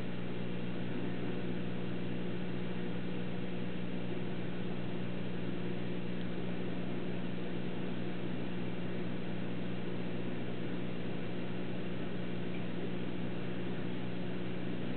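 Steady low hum with a faint hiss, unchanging: background machine or electrical hum in a room.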